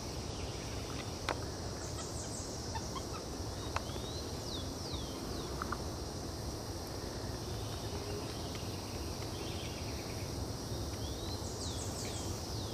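Woodland ambience: a steady high insect drone, with a few runs of short, high, falling whistled calls about two, five and twelve seconds in, and a faint tap or two.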